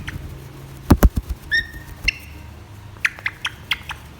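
African grey parrot making two short whistled squeaks, then a quick run of sharp clicks. A few loud knocks about a second in.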